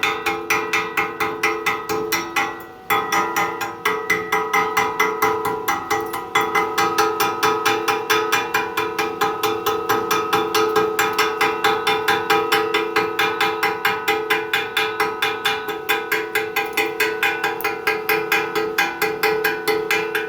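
Chipping hammer rapping steel flat bar about four times a second, knocking the slag off a freshly run 7018 stick weld bead, the plate ringing under each blow, with a brief pause early on.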